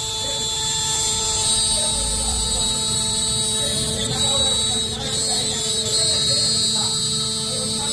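CNC router spindle running steadily with a high whine and a buzzing hum as its bit carves a relief pattern into an MDF panel.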